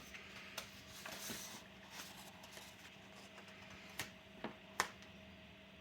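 Light clicks, taps and rustles of handling a laptop and its cut-out adhesive vinyl skin, over a faint steady hum. The sharpest clicks come about four and five seconds in.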